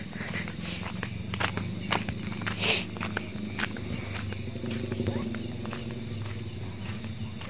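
Crickets chirping in one steady high trill, over a low steady hum, with scattered footsteps and small clicks as someone walks.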